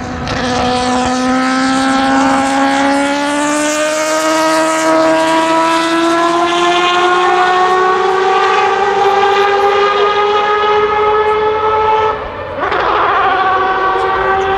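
Mazda 787B's four-rotor racing rotary engine accelerating hard with a loud, high, howling pitch that climbs steadily for about twelve seconds. It breaks off briefly, then carries on at a slightly lower pitch.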